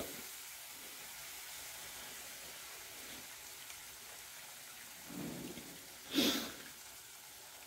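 Faint, steady sizzling hiss of tamarind water cooking in a pan of spiced oil on a low flame. A brief louder sound comes about six seconds in.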